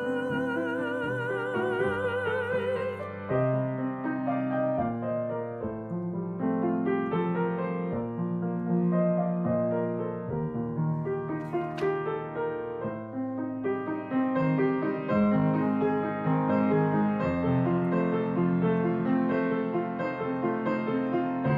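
Music: a singer holds a long note with vibrato that ends about three seconds in, followed by piano playing.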